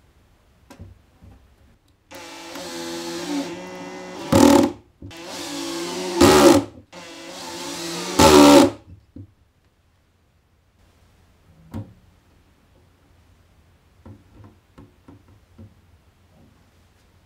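Cordless drill-driver driving screws into a door hinge: three runs of about two seconds each, each ending in a short louder burst as the screw seats. A few light clicks follow near the end.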